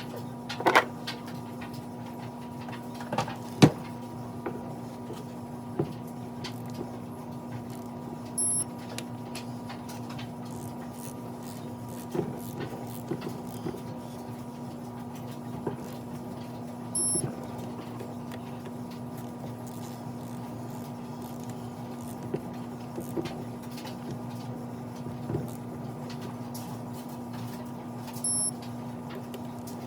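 Hand tools working on a small engine's top end: scattered sharp metallic clicks and taps, the two loudest about a second and three and a half seconds in, over a steady low hum. Three short high-pitched electronic beeps come roughly ten seconds apart.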